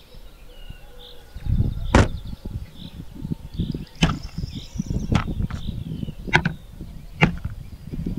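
Kitchenware and food being set down one after another on a blanket-covered folding table: a metal pot and wooden bowls and boards knocking sharply about five times, with rustling handling between. Faint birdsong in the background.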